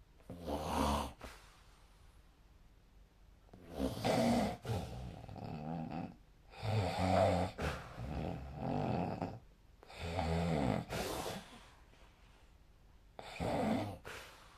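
A sleeping person snoring: five separate puffing snore breaths, some short and some drawn out over two or three seconds, with quiet gaps between them.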